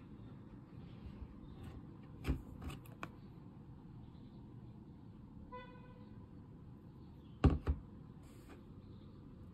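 Quiet room tone with a few light taps and knocks from a plastic juice bottle being handled, the loudest a quick double knock near the end. A brief faint horn-like toot sounds about halfway through.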